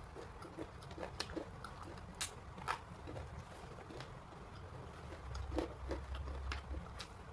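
Close-miked eating: soft chewing with scattered small crunches and mouth clicks, and a brief low rumble about five seconds in.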